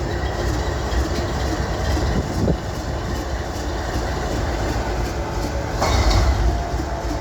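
Canadian Pacific GE AC44CW diesel locomotive's engine rumbling low and steady as the unit auto-starts with no one in the cab, with a sudden louder rushing burst about six seconds in.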